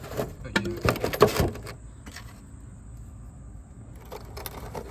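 Handling noise from fingers on the mesh netting and the container's edge: a quick run of clicks and knocks, loudest about a second in, then quieter, with a few light taps near the end.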